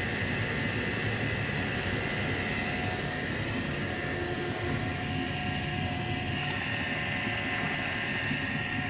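Hardinge DSM 59 super precision lathe running steadily, with its coolant pump switched on: an even whine over a noisy hum.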